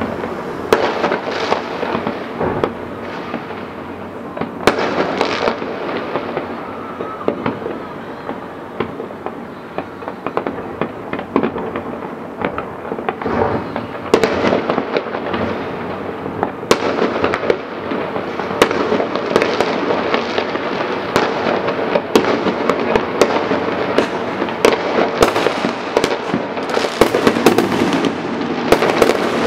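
Fireworks display: a continuous barrage of bangs and crackling bursts, growing thicker and denser near the end.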